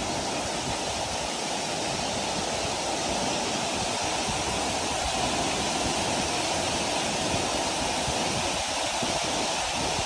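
Waterfall plunging into a rock pool: a steady, unbroken rush of falling water.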